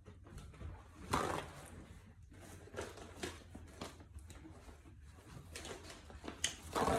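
Irregular crisp crunches and rustles of tortilla chips being handled and eaten, the loudest about a second in and again near the end, over a faint low hum.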